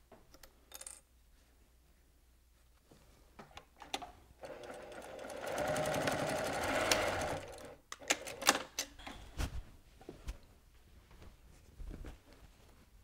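Electric sewing machine stitching for about three and a half seconds, building up and then stopping sharply, as it runs back stitches to lock the ends of an elastic loop in place. Several sharp clicks and knocks follow.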